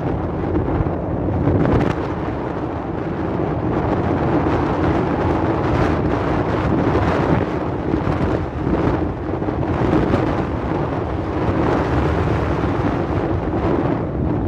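Strong wind buffeting the microphone in gusts, with a steady hum underneath.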